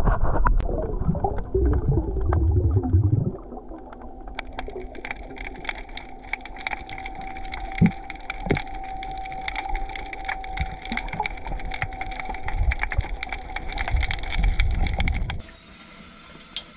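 Underwater sound picked up by a diving camera: a loud rumble of moving water and bubbles for about three seconds, then quieter underwater crackling, a dense run of small clicks over a faint steady hum. Near the end it cuts to a quiet, even background hiss.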